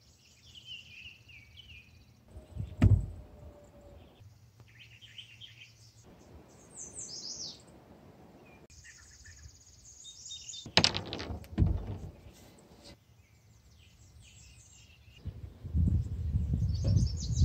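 Birds chirping in the background, the sound changing abruptly every few seconds as short clips cut together, with a sharp knock about three seconds in and two more around eleven to twelve seconds. Near the end a louder low rumbling noise takes over.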